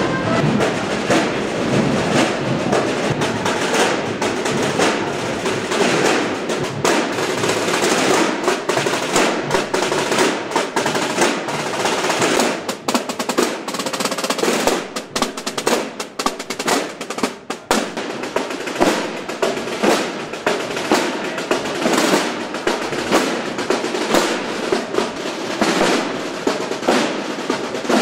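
Massed Holy Week procession drums (tambores) playing continuous rolls, with sharp single strokes standing out more from about halfway through.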